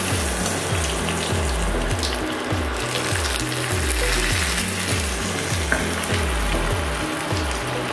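Hot coconut-oil tempering of mustard seeds, urad dal and curry leaves sizzling and bubbling steadily on top of a bowl of shallot-and-chilli chutney, with a few small crackles.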